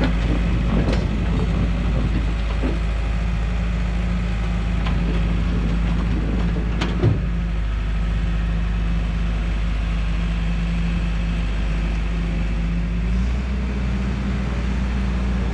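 A vehicle engine running steadily, with a few short knocks and clicks over it. Its tone shifts about 13 seconds in.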